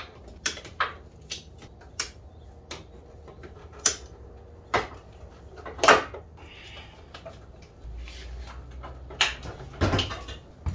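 Irregular metallic clicks and clanks of locking pliers clamped onto a mashed car battery terminal and worked to loosen it, the loudest clank about six seconds in.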